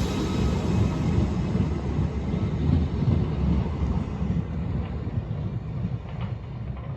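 A train running with a low rumble that slowly fades as it moves away.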